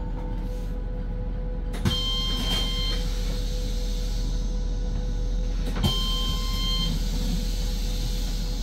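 Autonomous city bus running, heard inside the cabin as a steady rumble with a constant hum. Twice, about four seconds apart, a click is followed by a short electronic chime lasting about a second.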